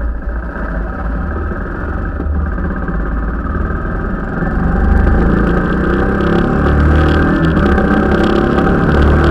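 Royal Enfield Himalayan's single-cylinder engine running as the motorcycle is ridden, heard close from the bike-mounted camera. It gets louder about halfway through as the bike picks up speed.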